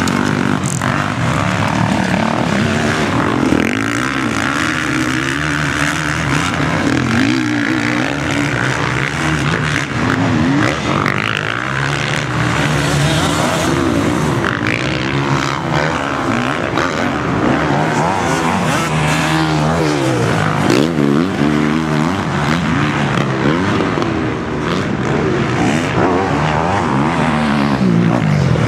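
Motocross bike engines revving hard, their pitch sweeping up and down again and again as the riders accelerate, shift and back off around the track.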